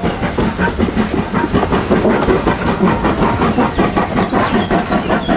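Full-size steam locomotive dressed as Thomas the Tank Engine under way, chuffing in a quick, even beat with the hiss of steam and the clatter of its running gear and coach on the rails.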